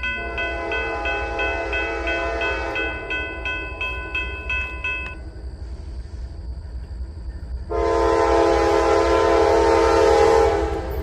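A railroad crossing bell dings about three times a second for the first five seconds over a low rumble. About eight seconds in, a locomotive air horn sounds one loud chord lasting about three seconds.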